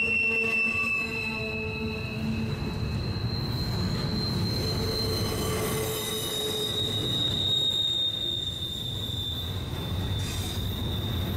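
Steel wheels of double-stack container well cars on a passing freight train, squealing against the rail in one steady high tone that jumps higher about a second in, over a continuous low rumble of the cars rolling.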